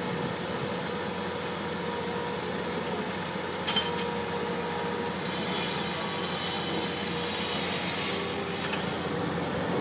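Machinery running steadily during paver installation work, with a sharp click just before four seconds in and a harsher scraping noise that builds from about five seconds in.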